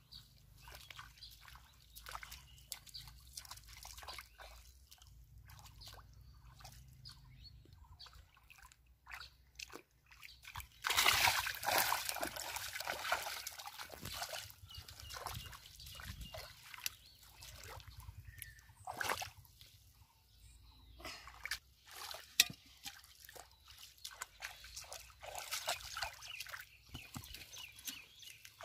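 Shallow, muddy pond water splashing and sloshing as someone wades through it and grabs at fish by hand, in many short splashes. About eleven seconds in there is a louder spell of splashing lasting a few seconds.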